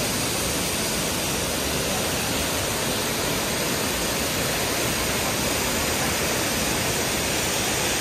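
Steady rush of a large, wide waterfall plunging into a pool.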